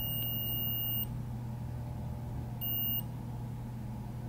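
Multimeter continuity beeper sounding a steady high tone while its probe touches the PP3V0_TRISTAR line. It cuts off about a second in and beeps again briefly near three seconds: the line is still shorted. A steady low hum runs underneath.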